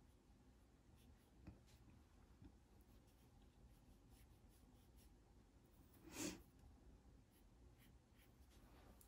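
Near silence with faint scratching of a paintbrush on watercolor paper, and a brief soft whoosh about six seconds in.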